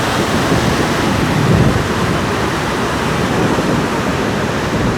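Steady rushing of water, an even noise with no distinct events.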